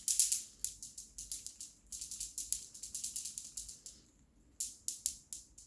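A fidget toy with loose pieces inside being shaken, rattling like a maraca in quick irregular strokes, with a short pause near the end.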